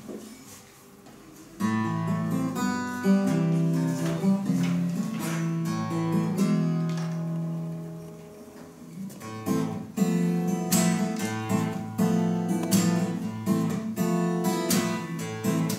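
Acoustic guitar playing a song's instrumental introduction: after a brief quiet start, picked notes ring out and fade about halfway through, then steady strumming begins and carries on.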